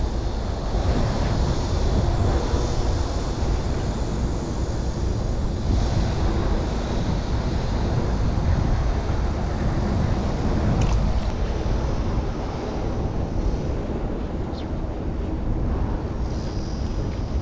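Wind buffeting the microphone: a steady low rumble that rises and falls a little with the gusts.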